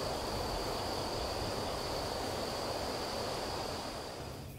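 Night-time insect chorus: a steady high-pitched trill over a hiss of background noise, fading out shortly before the end.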